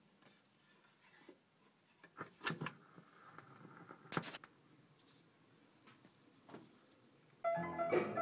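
A few light clicks and knocks in quiet, the loudest about two and a half and four seconds in, as a record is changed on a Philips Norelco Auto Mignon car record player. Music from the player starts abruptly near the end.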